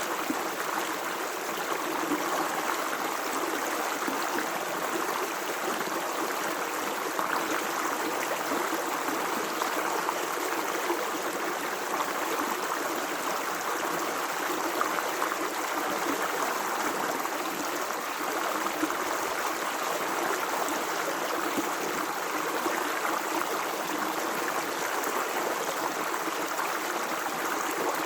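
Running water in a natural watercourse, a steady, unbroken rush of flow.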